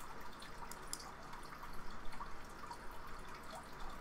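Faint clicks and rustles of trading cards being handled and set down on a table, over a steady background hiss.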